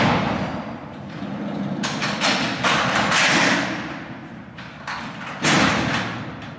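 A series of heavy booming impacts, each trailing off in a long echoing decay, cutting off abruptly at the end.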